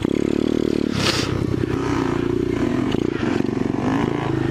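Small dirt bike engine running under way on a trail, its pitch shifting with the throttle: it holds steady in the middle and rises near the end. A brief rush of noise comes about a second in.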